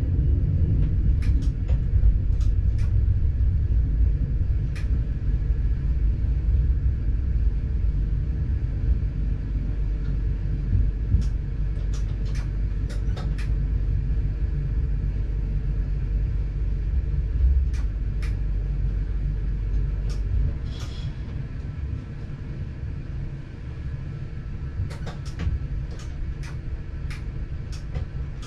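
Steady low rumble of a passenger train heard from the driver's cab, with scattered sharp clicks. About twenty seconds in, the deepest part of the rumble drops away and a short hiss follows.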